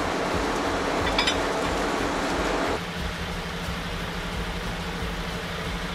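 Vehicle engines running steadily over a rumbling road-side noise. About three seconds in, the sound cuts to a quieter, steady low engine hum.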